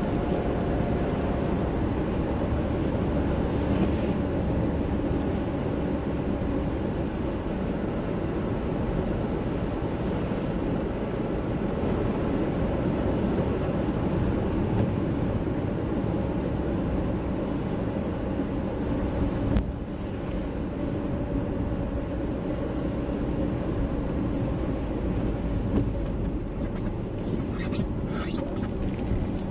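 Steady road noise inside a car driving on a wet road: engine hum and tyre noise, with a light knock about two-thirds of the way through and a few short clicks near the end.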